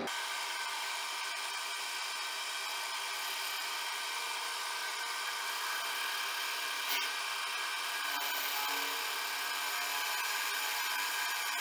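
Schaublin milling machine's cutter milling a flat on a machine-head casting: a steady cutting noise with a high ringing whine. There is a single sharp click about seven seconds in.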